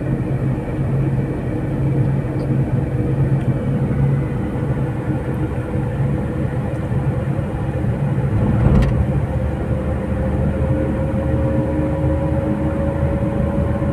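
Manual car's engine and road noise heard from inside the cabin, cruising steadily in third gear. Near the end the engine note climbs slightly in pitch as the revs rise. There is one brief thump a little past halfway.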